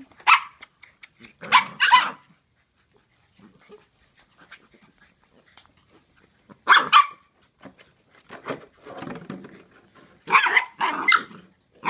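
Puppies barking in short, sharp bursts: a few quick barks together, then a pause, five times over. The puppies are excited and wound up at play.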